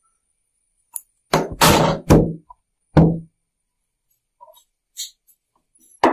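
Hammer blows on a metal rod used as a punch, driving out the pin of a sewing machine's shuttle drive shaft link. There is a quick run of sharp strikes with a short ring, one more strike a second later, a few faint ticks, and a last strike near the end.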